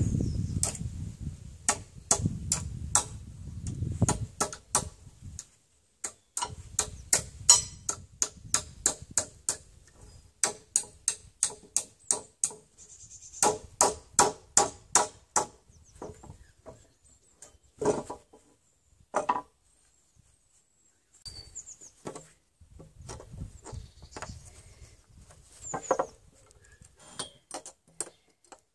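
A hammer striking the metal of a nail puller to drive its jaws under old nails in a wooden beam: runs of sharp taps, a few a second with pauses, some of them ringing briefly.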